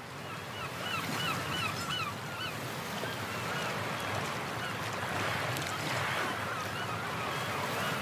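Steady background hiss with a run of short squeaky chirps, about three a second, that thin out and come back more faintly midway.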